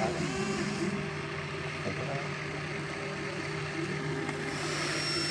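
An excavator's motor running with a steady low hum.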